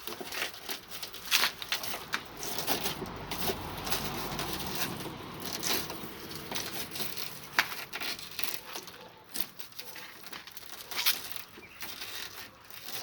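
Irregular scraping and sharp clicks of a blade or screwdriver working old window-bonding glue off a car's metal window frame.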